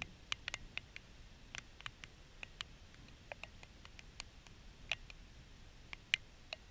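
Irregular sharp ticks and clicks, a few a second, unevenly spaced, over a faint low background noise.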